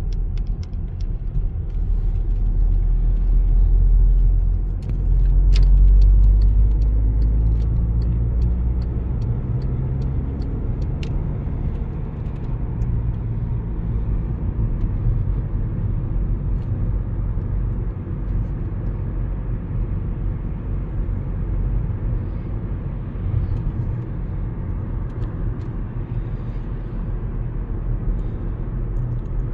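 Volkswagen Passat B7 driving: a steady low rumble of engine and road noise, swelling briefly about five seconds in, with scattered sharp clicks during the first ten seconds or so.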